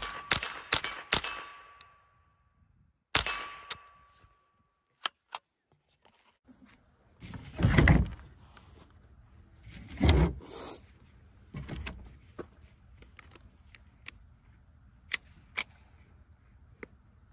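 The last few of a quick string of shots from a handheld gun, each answered by the ringing of a struck steel target, which fades out; one more shot with a target ring about three seconds in. Later come two heavy handling thumps close to the microphone and a few small clicks.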